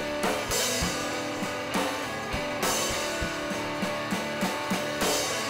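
Background music: a guitar track with a steady drum beat.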